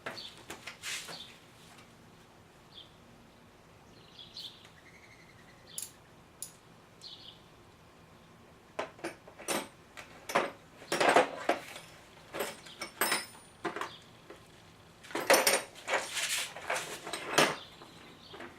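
Metallic clinking and clattering of handled metal objects: a few scattered ticks at first, then two busy spells of sharp clinks in the second half.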